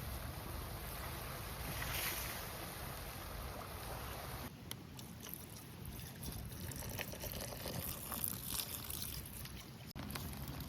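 Flowing river water, a steady rush, with a few faint clicks and taps in the second half.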